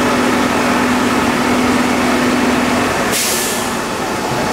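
A fire truck's diesel engine runs steadily, with a steady hum that drops out a little before three seconds in. Right after it comes a short, sharp hiss of escaping air.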